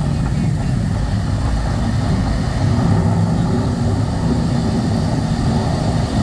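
Deep, steady rumble of a thunderstorm sound effect played over a concert sound system.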